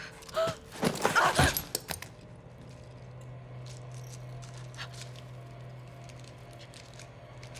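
A short, loud burst of strained, cry-like vocal sounds about a second in, then a steady low hum with faint scattered clicks.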